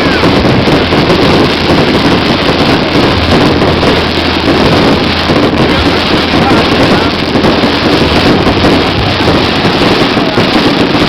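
Fireworks going off in a dense, continuous crackle, loud and unbroken.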